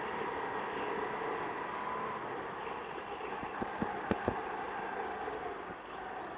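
Go-kart engine running at speed, heard from onboard the kart, its pitch rising and falling gently. A quick run of four or five sharp knocks comes about halfway through.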